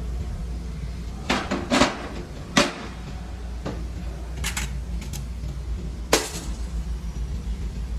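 Metal tools and engine parts clinking and clanking during an engine teardown: about seven separate sharp knocks, the loudest two around two seconds in, over a steady low hum.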